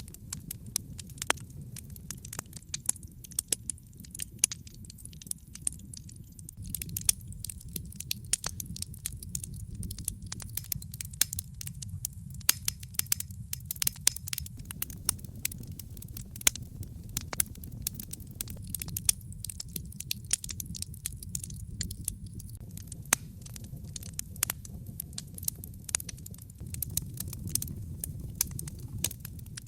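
Wood fire burning in a fireplace: a steady low rumble of flame with irregular crackles and pops, a few of them sharper and louder.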